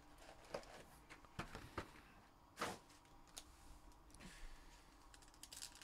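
Faint handling noises as foil-wrapped trading card packs are tipped out of a cardboard hobby box and squared up into a stack: scattered soft clicks and rustles, the clearest about two and a half seconds in.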